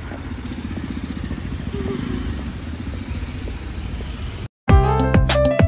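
Street traffic noise with a motor vehicle engine running close by. About four and a half seconds in, it cuts off abruptly and instrumental music with guitar- or piano-like notes begins.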